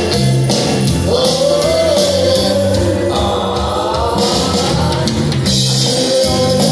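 Ukulele band strumming and singing together, a group of voices carrying the melody over a steady strummed beat.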